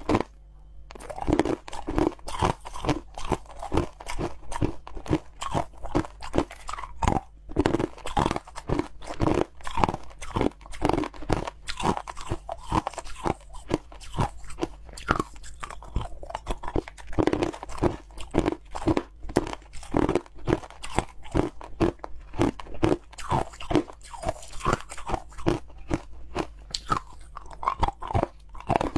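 A person biting and chewing chunks of soft, snowy white ice: a rapid run of crisp crunches, a few a second, with a short pause about a second in.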